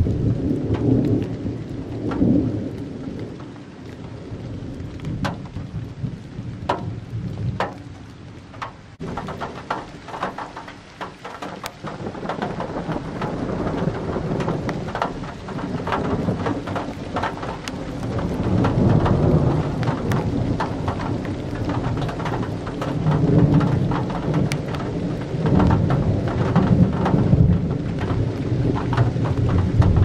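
Rolling thunder rumbling low and long, easing off about a third of the way in, then swelling again through the second half. Rain falls throughout, with sharp ticks of drops close by.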